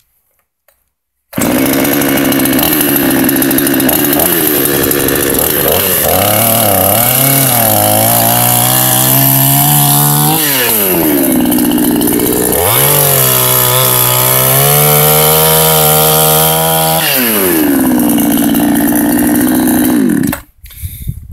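Huter BS-45 two-stroke petrol chainsaw sawing through a birch log. It starts about a second in at high revs, the pitch wavering and sagging as the chain bites, dropping and climbing again between two cuts, then stops abruptly near the end.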